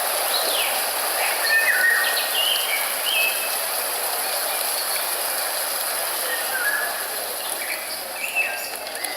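Birds chirping over a steady, even hiss, with a gap of a few seconds between the chirps in the middle.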